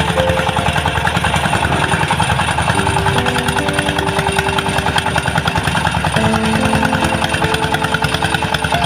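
Motorised rice thresher running steadily, its small engine making a rapid even pulsing. Held tones shift in pitch over it every second or so.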